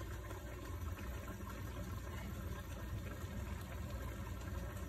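Pot of tomato-based chili simmering on the stove: a faint, steady bubbling hiss.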